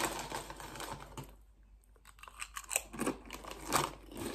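Crinkle-cut potato crisps being crunched and chewed: a run of crunches, a pause of about a second, then more crunching.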